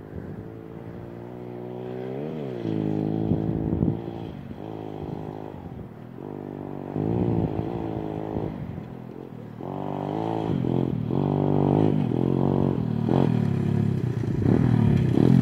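Pit bike engine revving up and dropping back again and again as it is ridden along a dirt track, growing louder as the bike draws near.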